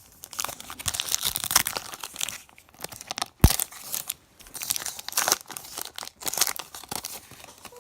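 Foil trading-card pack wrappers being torn open and crinkled in two spells, with a single sharp click about three and a half seconds in.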